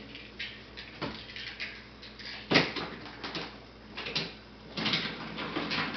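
Toy trains and pieces clicking and knocking against a wooden train table and track as a toddler handles them, in scattered knocks with the loudest about two and a half seconds in and a longer scraping stretch near the end.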